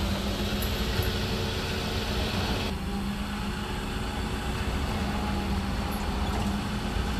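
Forklift engine running steadily with a constant low hum. The higher hiss shifts about three seconds in.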